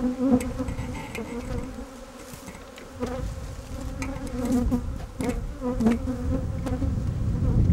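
Honeybees buzzing around open hives, a steady hum with individual bees swelling and fading as they fly close past. A few light knocks are heard among the buzzing.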